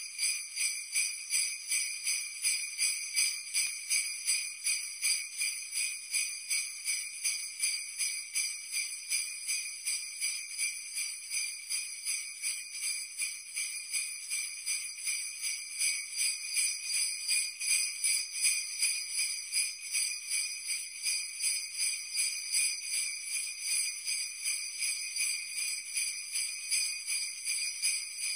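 Sleigh bells jingling in a steady, even shaking rhythm, about three shakes a second, high and bright with almost no low end.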